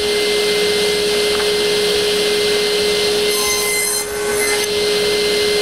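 Table saw running steadily with a held hum, cutting a half-inch wooden board to length, with a short dip about four seconds in.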